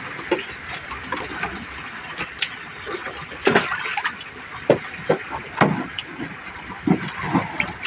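Water splashing in tubs holding live gourami: a string of short, irregular splashes and sloshes, as a landing net is dipped into a plastic tub.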